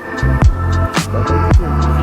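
Background electronic music with a steady drum beat and a bass line.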